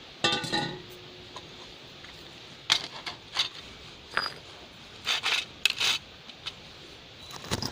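Small cast silver-solder ingot clinking against hard surfaces as it is handled: a ringing metallic clink about half a second in, then several short, sharp taps and clicks.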